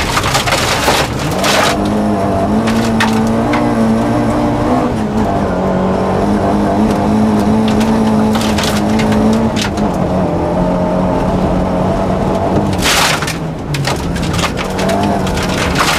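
Rally car engine running hard, heard from inside the cabin on a gravel stage, with loose gravel rattling and pinging against the underbody. The engine note rises about a second in, holds steady, then drops about ten seconds in; a loud burst of gravel noise comes about thirteen seconds in.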